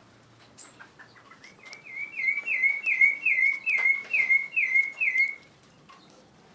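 Pet bird singing a run of about ten evenly spaced, repeated notes, each slurring downward, lasting about four seconds, with faint higher chirps from other birds behind it.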